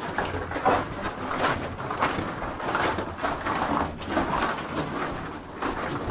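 Footsteps of people walking along a narrow stone tunnel, about one step every two-thirds of a second.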